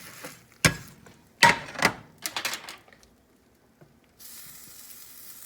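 Cookware clattering in a kitchen mishap: a few sharp knocks and a short rattle, then a steady frying sizzle starts near the end.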